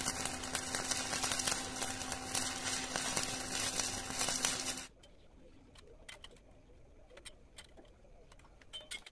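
Stick-welding arc crackling and sputtering as the electrode burns, with a faint steady hum underneath. The arc cuts off suddenly about five seconds in, leaving only a few faint clicks.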